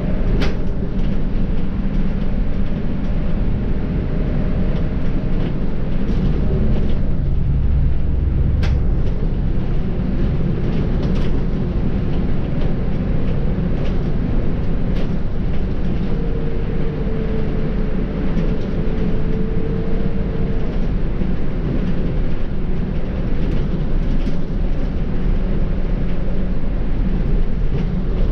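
Volvo B7R bus running along the road: steady diesel engine and road noise, with a few sharp clicks or rattles and a faint whine for a few seconds past the middle.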